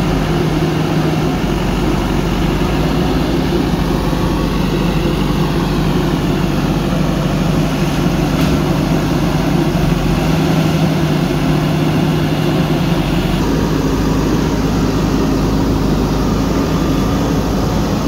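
A JCB backhoe loader's diesel engine running steadily, its note shifting slightly about two-thirds of the way through.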